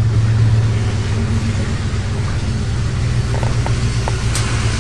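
Pickup truck's engine running at a low, steady drone, heard from inside the cab while it drives slowly. A few faint clicks come about three seconds in, and a sharp tick near the end.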